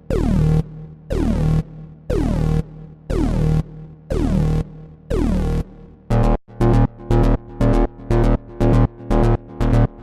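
Synthesized electronic alarm sounding in pulses about once a second, each pulse with a falling pitch sweep. About six seconds in it cuts to a different, faster alarm beeping a little over twice a second.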